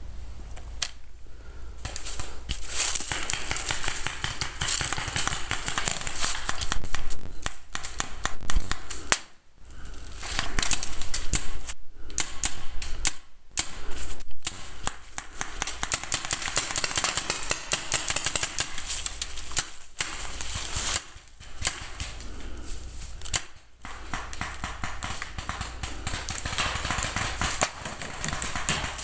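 Paintball markers firing in rapid strings of sharp pops, nearly continuous with a few short breaks.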